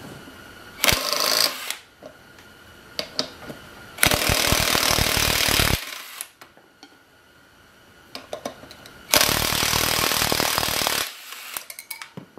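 Cordless impact driver hammering on a rear sprocket mounting nut of a 1973 Honda CL350 hub, in three bursts: a short one about a second in, then two longer ones of about two seconds each. The nut is stuck and not coming off. Small clicks of the socket and hub being handled fall between the bursts.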